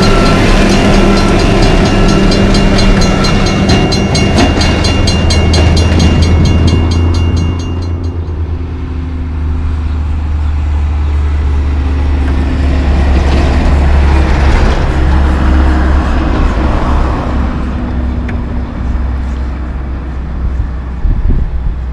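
A rail tamper maintenance machine rolling past on the track, with a fast, even ticking over its running. About eight seconds in this gives way to the low, steady diesel engine drone of a Peterbilt 379 semi truck that comes closer, is loudest about midway, then fades as it drives away.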